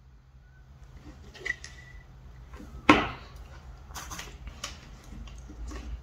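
Scattered clicks and knocks of small metal tools and parts being handled on a workbench, with a sharp knock about three seconds in that stands out above the rest, over a faint steady low hum.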